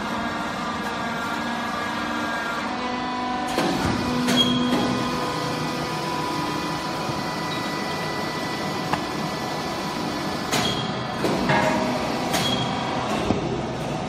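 Hydraulic baler running a press cycle: its pump motor hums steadily with several held tones that shift in pitch about three seconds in. A few sharp clunks and clicks come around four seconds in and again in a cluster near the end.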